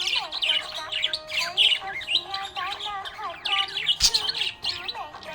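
Budgerigars chirping and warbling continuously in quick, busy chatter, with one sharp click about four seconds in.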